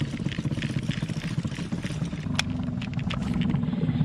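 A small boat engine running steadily at low speed, with one sharp click about two and a half seconds in.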